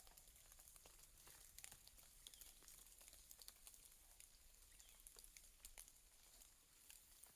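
Near silence with faint, scattered raindrops ticking irregularly as the rain eases off.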